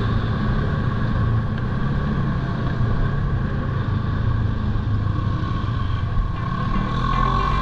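Polaris Sportsman ATV engine running at a steady speed while riding along a dirt trail.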